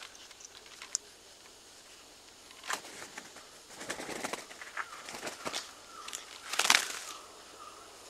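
Raggiana bird-of-paradise displaying at close range: several bursts of wing-flapping and feather rustling, the loudest about three-quarters of the way through, with a soft wavering call in the second half.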